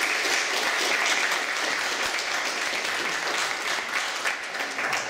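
Audience applauding steadily: a roomful of people clapping at the end of a speech.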